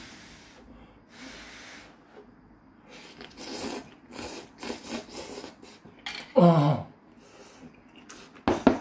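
Ramyeon noodles slurped and chewed, with hissing breaths and a quick run of wet slurping strokes in the middle. About six seconds in comes one short, loud vocal sound that falls in pitch, and a few sharp mouth clicks follow near the end.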